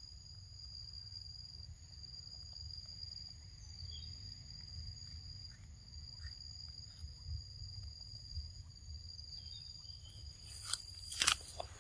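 Insects calling steadily in one unbroken high-pitched tone over a low outdoor rumble. A few faint ticks in the middle are followed by a quick run of loud, sharp clicks near the end.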